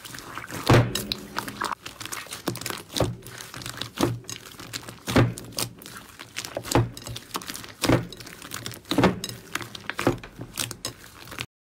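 Hands squeezing and kneading a crunchy green slime full of foam beads: a steady crackling with a sharp squelching pop about once a second. The sound stops abruptly near the end.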